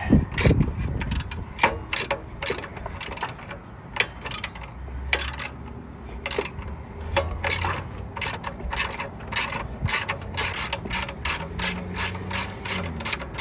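Hand socket ratchet on an extension clicking in short back-and-forth strokes while loosening an alternator mounting bolt. The clicks come in uneven bursts at first and grow quicker and more regular toward the end.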